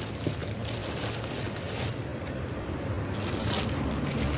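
Thin plastic produce bags crinkling several times in short bursts as a hand handles bagged bok choy, over a steady low rumble.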